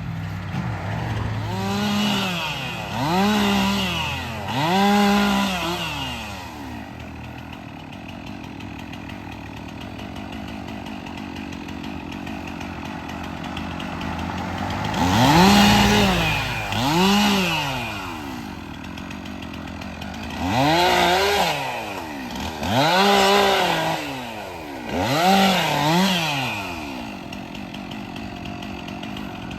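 Stihl 362 two-stroke chainsaw cutting brush and small trees, revved up and back down again and again, each burst rising then falling in pitch, with a longer stretch of idling in the middle.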